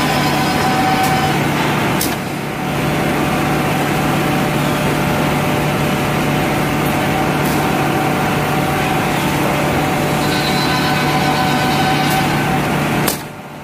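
Woodmaster two-table oval mortising machine running, a steady motor hum with a held tone, broken by a few sharp clicks. The level dips briefly about two seconds in and again near the end.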